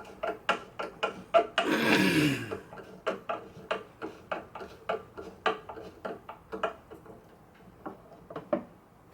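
Rapid light clicks, about three a second, from hands working parts of an archtop guitar during reassembly, thinning out toward the end. About two seconds in, a single pitched tone slides steadily downward.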